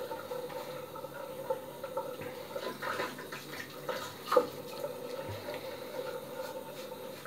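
Three-bladed razor scraping over a lathered scalp in several short strokes, over a faint steady hum.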